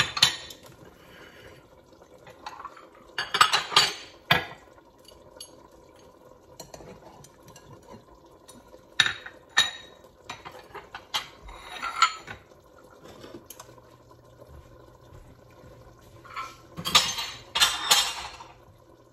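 Ceramic plates and small bowls clinking as they are stacked and lifted from a counter, with a metal utensil knocking among them. The clinks come in a handful of separate clusters, the loudest near the end.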